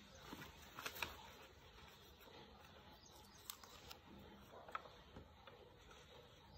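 Near silence: faint room tone with a few soft, brief clicks, the sharpest about a second in.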